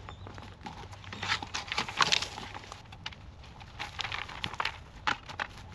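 Cut medake bamboo being worked by hand: leafy branches rustle and crackle, with irregular sharp snaps and clicks as branches are cut from the culms.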